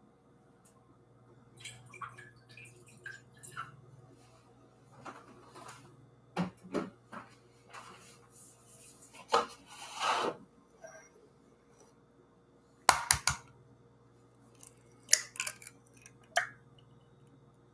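Kitchen handling sounds: scattered clinks and knocks of dishes and utensils, a few sharp knocks in the second half, and a raw egg cracked open by hand near the end.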